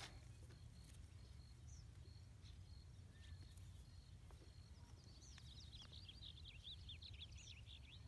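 Near-silent outdoor quiet with a faint low rumble. From about five seconds in, a faint series of quick, high bird chirps.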